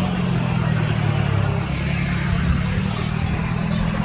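An engine running steadily with a low, even hum, like a motor vehicle idling or passing close by.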